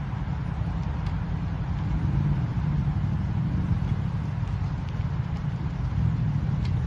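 Jaguar hearse and the cortege cars behind it creeping along at walking pace, a steady low engine and tyre rumble mixed with wind buffeting the microphone.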